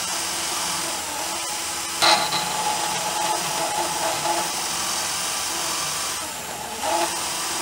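Mondial cordless drill/driver running steadily at speed, with a short louder surge about two seconds in.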